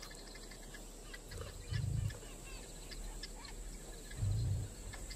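Savanna ambience of many small birds chirping over a steady high insect whine, with two loud low swells of music about two and four seconds in.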